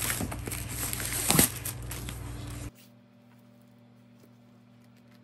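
Handling noise of a hardcover book and its packaging being moved about, with one sharp knock about a second and a half in. It cuts off abruptly about halfway through to near silence with only a faint steady hum.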